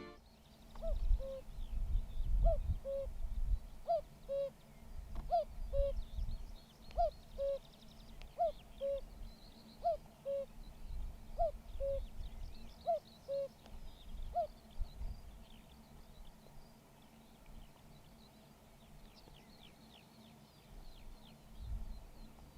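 Common cuckoo calling its falling two-note "cuck-oo" about ten times, one call every second and a half, stopping about two-thirds of the way through. Faint chirps of smaller songbirds go on throughout.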